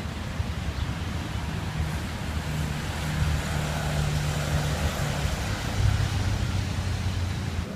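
A motor vehicle going by: a low engine hum and tyre hiss that swells in the middle, over rumbling wind on the microphone.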